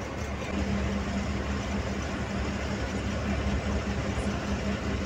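Bus engine running at cruising speed with tyre and road noise, heard from inside the front cabin. There is a steady low drone and a hum that pulses about four times a second.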